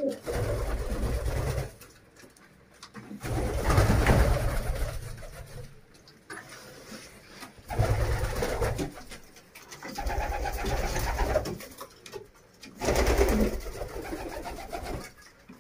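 Domestic pigeons cooing in a loft, in five bursts of about one to two seconds each with short quiet gaps between them.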